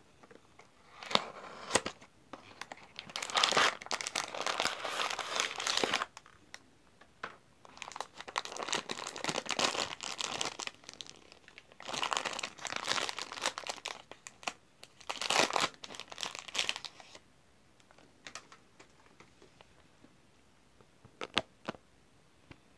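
The plastic wrapper of a Magnum ice cream bar crinkling and tearing as it is opened and pulled off, in four bursts of a few seconds each, followed by a few short clicks near the end.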